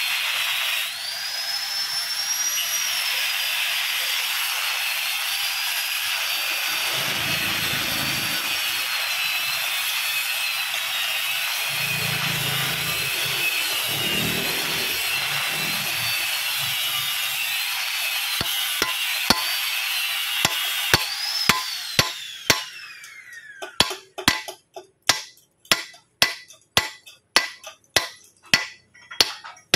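A power tool runs steadily with a wavering whine, then winds down about three-quarters of the way through. Hammer blows on a steel drift follow, at about two a second, driving a water-jacket core plug into a cast-iron engine block.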